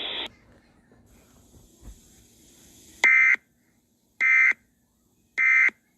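Emergency Alert System end-of-message data bursts: three identical short, harsh digital buzzes about a second apart, starting about three seconds in, marking the end of the tornado warning broadcast.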